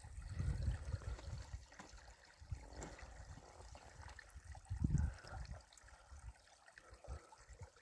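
Wind buffeting the microphone in irregular gusts, a low rumbling rush that swells near the start and again about five seconds in.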